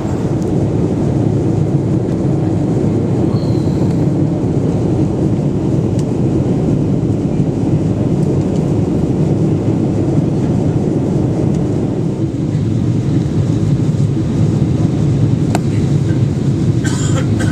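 Steady cabin noise inside a Boeing 777-200ER in descent: a constant low rush of airflow and engine noise.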